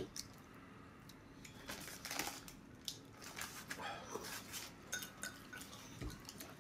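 Faint eating sounds: soft clicks of chopsticks against a bowl, with chewing and mouth noises.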